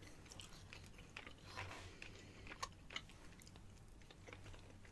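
Faint chewing of soft pasta in the mouth, with scattered short, wet mouth clicks.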